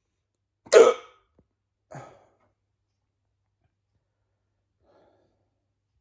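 A person hiccuping: one loud, sharp hiccup about a second in, then a softer one a second later.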